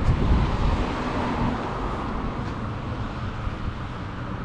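Road traffic noise: a steady low rumble that is loudest in the first second or two and then eases off.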